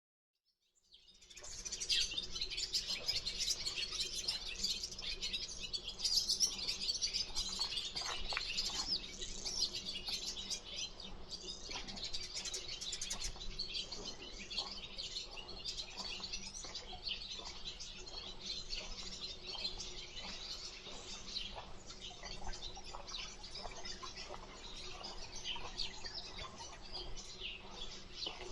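Many small songbirds chirping and twittering in a dense, continuous chorus that fades in about a second in.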